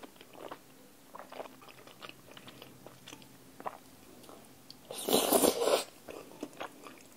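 Close-miked chewing of saucy tteokbokki rice cakes, with soft, scattered mouth clicks and one loud mouth noise lasting under a second, about five seconds in.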